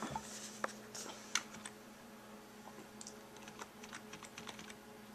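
Typing on a computer keyboard: a few separate keystrokes, then a quicker run of light key clicks in the second half, over a faint steady hum.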